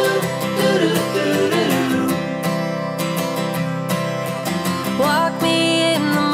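Background music with strummed acoustic guitar.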